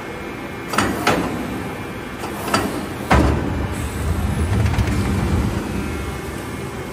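Bubble-wrap slitting machine running with a steady hum, broken by four sharp clacks in the first three seconds and then a low rumble lasting a few seconds.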